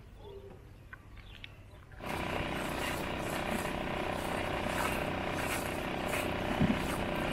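A small motor running steadily, with water splashing, starts abruptly about two seconds in after a faint, quiet opening.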